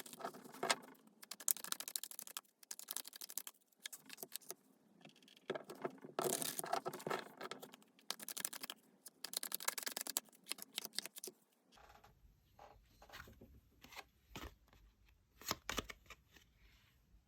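Tarot cards being shuffled and handled: dense rustling and clicking of cards for about twelve seconds, then separate card clicks and taps over a low hum.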